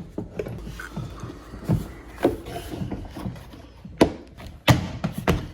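Hand-fitting noises from small parts being seated: a handful of sharp clicks and knocks, the loudest two near the end, with light rubbing in between.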